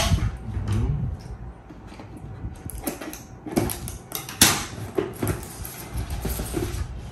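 Cardboard product box being handled and opened on a glass tabletop: rustling, scraping and light knocks, with one sharp click about four and a half seconds in.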